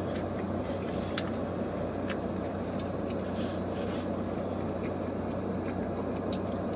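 Steady low rumble and hum inside a car's cabin, with a few faint clicks from chewing.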